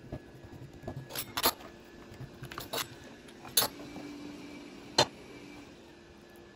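Several sharp taps and clicks of a kitchen utensil on the wooden board and dishes, the loudest about one and a half, three and a half and five seconds in, over the soft sound of hands working the thin börek dough.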